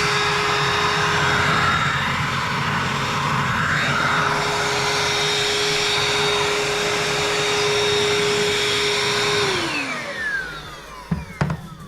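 Kitfort KT-557 handheld cordless vacuum cleaner running in its second, higher power mode with a steady high motor whine. About nine and a half seconds in it is switched off, and the whine falls in pitch as the motor winds down. Two sharp knocks follow near the end.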